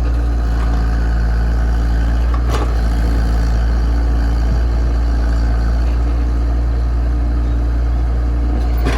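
Komatsu excavator's diesel engine running steadily, with a sharp knock about two and a half seconds in and another near the end.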